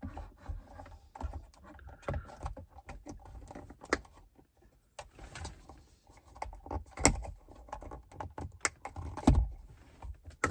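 Irregular plastic clicks, taps and small rattles of an Escort Max radar detector being handled and fitted onto its windshield mount, with a few sharper clicks in the second half.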